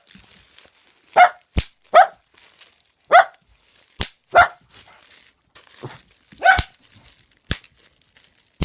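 A dog giving single sharp barks, about five of them, each on its own, reacting to bubble wrap. Between the barks come four short, sharp pops of bubble wrap being burst.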